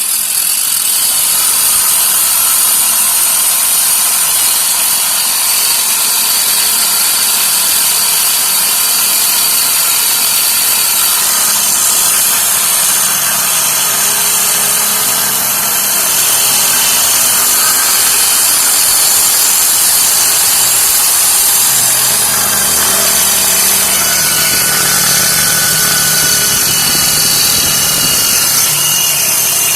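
Electric hand drill mounted in a homemade drill press stand, running steadily under load as it bores into steel, with a grinding whine. The cheap bit is worn blunt, which the owner says makes the cutting hard.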